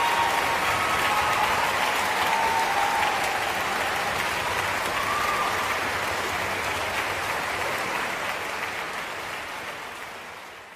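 Concert audience applauding steadily, fading out over the last two seconds.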